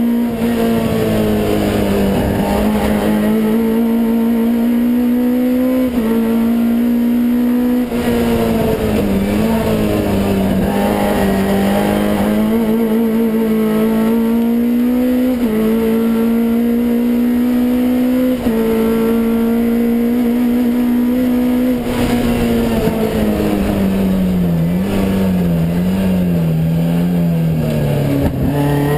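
Onboard sound of a 258 bhp naturally aspirated race engine on throttle bodies in a Vauxhall Nova, run hard at full load. Its pitch climbs and drops sharply at each quick upshift on a straight-cut dog gearbox, about five times. Twice it falls away as the car slows for corners, and it wavers up and down near the end.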